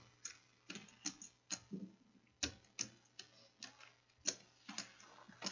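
Computer keyboard keys tapped at an unhurried, irregular pace, about a dozen faint clicks, over a low steady electrical hum.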